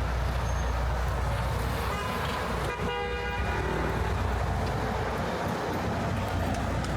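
Two short car-horn honks in street traffic, about two and three seconds in, the second louder and longer. Under them runs a steady low rumble of city traffic.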